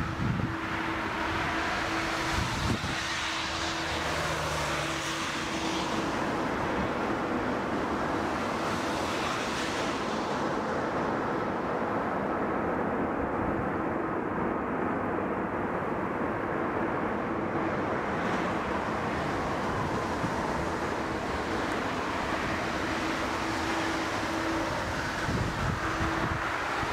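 Four Rolls-Royce Trent 500 turbofans of an Airbus A340-600 running on the runway: a steady jet rush with a steady low hum, its high hiss thinning for a while midway.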